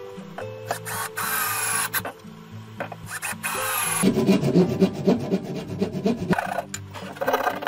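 Hand saw cutting through a thin wooden strip with rapid back-and-forth strokes, starting about four seconds in and pausing briefly near the end, over background music.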